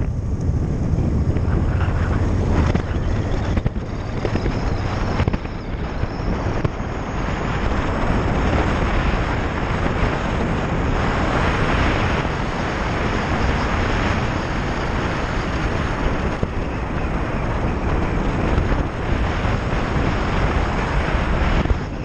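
Motorcycle riding: wind rushing over the microphone with the engine running underneath. The engine is more prominent in the first few seconds through the roundabout, and the wind grows stronger from about ten seconds in as the bike picks up speed on the open road.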